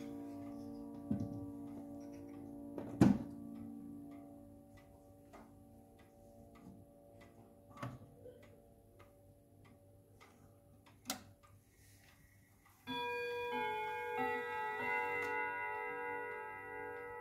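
Hermle triple-chime wall clock ticking steadily while the last chime tones die away, with a few sharp clicks and knocks as a hand works at the chime lever beside the dial. About 13 seconds in, the clock's chime rods start ringing a new melody, several notes overlapping.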